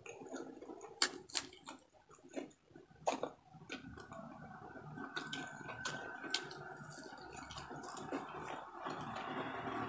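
Close-up eating sounds from a person eating with her fingers: wet chewing and sharp lip smacks as she sucks her fingers, with several clicky smacks in the first three seconds, then softer steady mouth noise.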